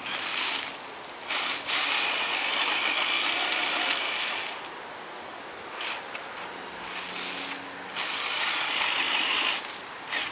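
Electric motor and geared drivetrain of a Tamiya Tundra RC crawler whirring and grinding in on-off bursts as it climbs over rocks, the longest burst lasting about three seconds.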